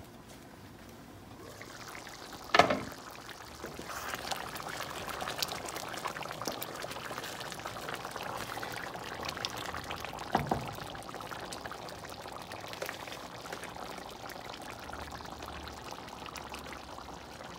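Chicken and egg stew bubbling in a pan on the stove, a steady hiss with many small pops. There are two sharp knocks, about two and a half seconds in and about ten seconds in.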